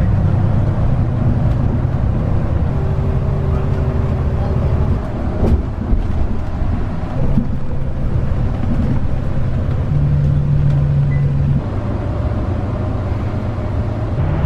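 A motor vehicle running: a loud, steady low rumble with an engine hum that shifts in pitch now and then, and a single knock about five and a half seconds in.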